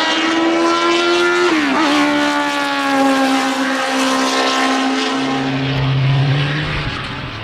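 Racing car engine at high revs, with a sharp gear change about two seconds in, after which the engine note holds and slowly sinks as the car pulls away. A second, lower engine note is heard for a second or two near the end as the sound fades.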